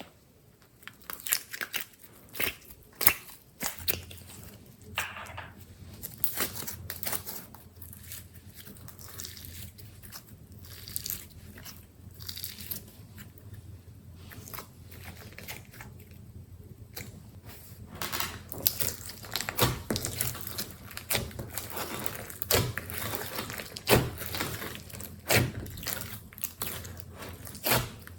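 Slime being squished and stretched by hand, giving irregular sticky clicks, pops and crackles that come thicker in the second half.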